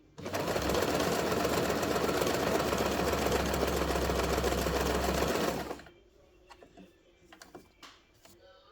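Janome RE1712 sewing machine running at a steady speed, stitching a zigzag seam, starting right away and stopping after about five and a half seconds. A few faint clicks follow.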